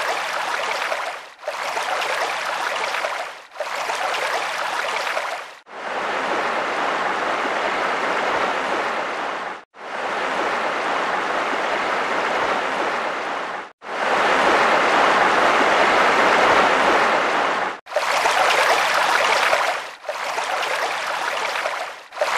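Water rushing and splashing, heard as a run of segments of a few seconds each that cut off abruptly one after another. It is loudest a little past the middle.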